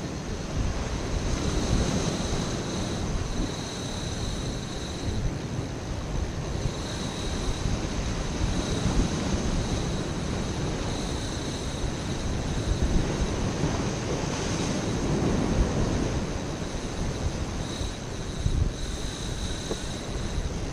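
Ocean surf washing in and breaking over a rocky lava shoreline, swelling louder every few seconds, with wind on the microphone.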